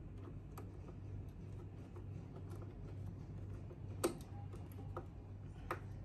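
Small screwdriver clicking against the screws and plastic of an air conditioner indoor unit's terminal block: a few faint scattered clicks, two sharper ones about four seconds in and near the end, over a steady low hum.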